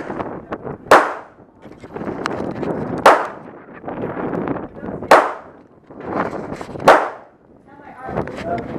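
Four gunshots from other guns on the firing line, about two seconds apart, each with a short ringing echo off the range.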